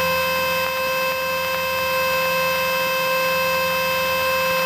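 Cessna 150's stall warning horn sounding one steady, unbroken tone over the engine running at full power as the nose is pulled up for lift-off: a sign the wing is near the stall angle, the plane climbing too steeply.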